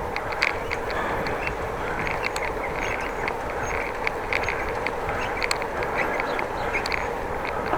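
A bicycle being ridden, with steady wind and rolling noise and a string of short, irregular high squeaks and clicks. The rider was unsure whether the squeaks came from his bike or from a bird singing.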